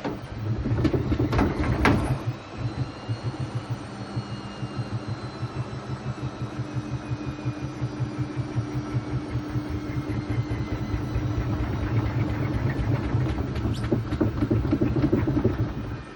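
Hoover VisionTech VTS715D21X washing machine, top panel off, spinning an unbalanced load: the drum thumps rapidly and evenly over a thin motor whine, then stops suddenly near the end.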